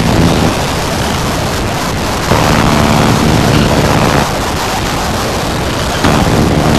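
Harsh noise music: a dense wall of distorted noise without pause. A low, buzzing pitched drone swells in over it and drops out again, sounding at the very start, for about two seconds in the middle, and again near the end, louder each time it enters.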